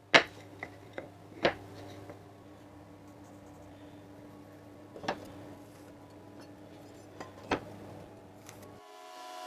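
A handful of sharp knocks and clicks, as tools or parts are handled and set down, over a faint steady hum. Near the end a motor starts up and runs with a steady hum.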